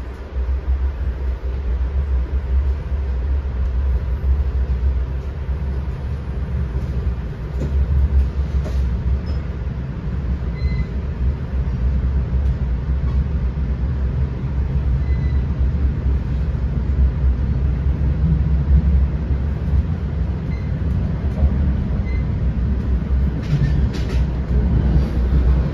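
Steady low rumble of an NJ Transit Comet passenger coach running on the rails, heard from inside the cabin, with a few brief rattling clicks near the end.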